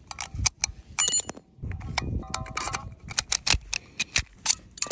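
Quick run of sharp metallic clicks as .30 Carbine cartridges are pushed one by one off a stripper clip into an M1 Carbine magazine, with a brief metallic ring about a second in and again near the middle.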